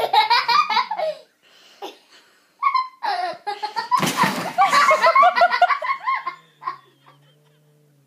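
People laughing hard in two long runs of rapid bursts, with a short rush of noise about four seconds in.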